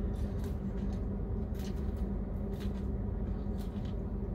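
A plastic fork picking through salad in a plastic clamshell container, with a handful of short clicks and crisp rustles of lettuce as he eats, over a steady low hum.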